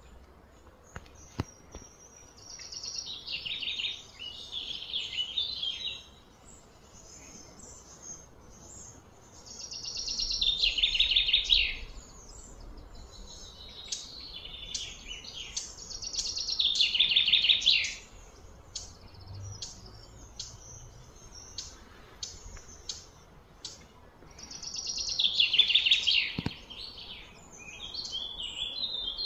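Outdoor animal calls: four bouts of high, rapidly pulsed calling, each two to three seconds long, swelling in loudness and then stopping, with a few faint clicks between them.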